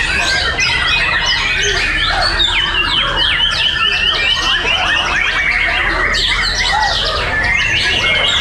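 Many caged white-rumped shamas (murai batu) singing at once: a dense, continuous tangle of fast whistled phrases and down-slurred notes from several birds overlapping.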